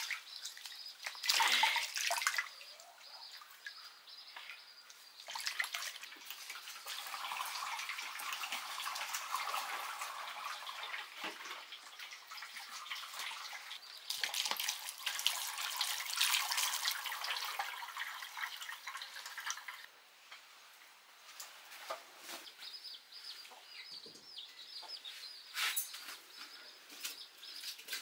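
Water splashing and trickling, with occasional knocks, strongest from about 6 to 20 seconds in; birds chirp in the background.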